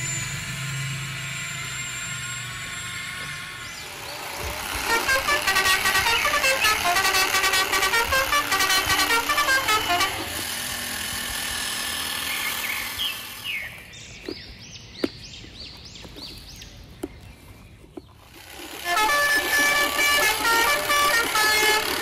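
Electronic toy-truck horn sound effects: loud stretches of rapid, pulsing honks and beeps, with a quieter stretch in the middle holding clicks and a run of short rising chirps.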